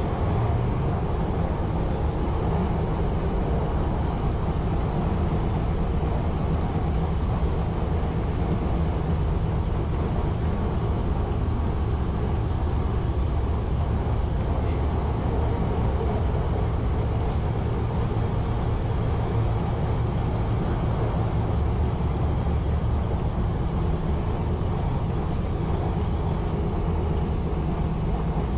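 Steady running rumble of a 1920s CPH railmotor travelling at speed: an even engine drone with wheel and track noise, unchanging throughout.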